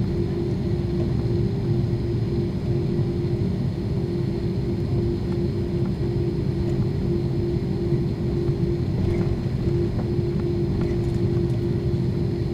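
Airbus A330-300's General Electric turbofan engines heard from inside the cabin behind the wing, running steadily while the airliner taxis: a constant low rumble with a steady hum over it.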